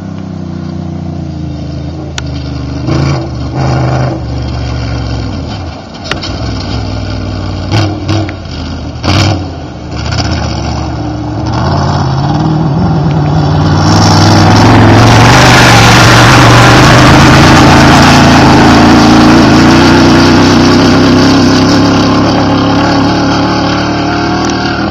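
Class 1 desert race car's engine revving up and down in the distance, echoing off the hills, then growing much louder as the car passes close by about fourteen seconds in, with a loud rush of tyres and dirt, before easing off near the end.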